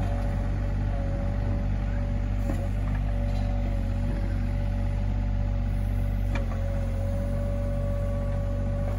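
Sany SY35U mini excavator's diesel engine running steadily with a constant whine over it, and a couple of faint clicks.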